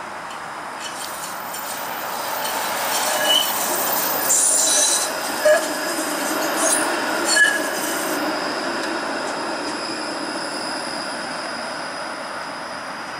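Toronto Flexity Outlook low-floor streetcar passing close by on curved track. Its running noise swells and then fades, with short high-pitched squeals of steel wheels against the rails near the middle.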